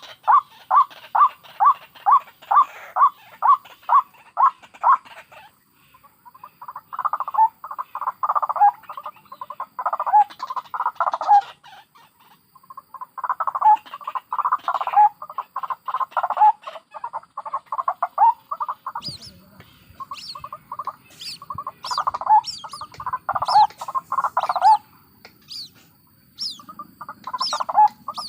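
White-breasted waterhen calling: first a steady run of croaking calls, about three a second, then after a short break loud, rapid cackling bouts. From about two-thirds of the way through, thin high-pitched peeping calls repeat about twice a second alongside the cackling; the recording mixes adult and chick calls.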